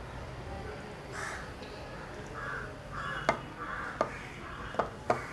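Crows cawing repeatedly, starting about a second in. In the second half there are four sharp clicks, which are the loudest sounds.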